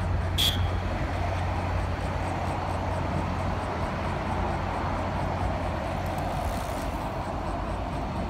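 Steady outdoor rumble and hiss, with one short, sharp ringing click about half a second in.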